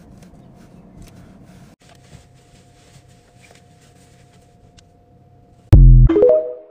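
Faint low background with a couple of faint steady tones, then near the end the TikTok end-card sound: a sudden deep bass boom followed by a quick run of short chime notes that fades away.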